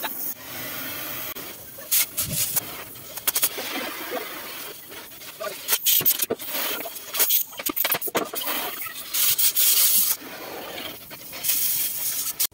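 Oxy-fuel cutting torch working on a steel truck chassis rail: irregular bursts of hissing with sharp cracks and pops scattered through.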